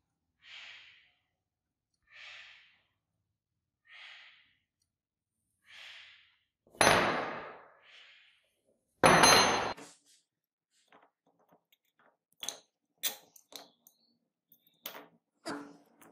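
Four soft breathy puffs, then two loud thunks with a brief metallic ring as a cast brass sword guard is set down hard on a wooden board, followed by a run of light clicks and taps.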